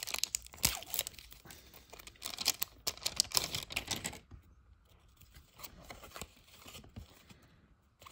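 A silver foil trading-card pack wrapper being torn open and crinkled, a dense crackle through the first half. It is followed by a fainter, sparse rustle of the cards being handled.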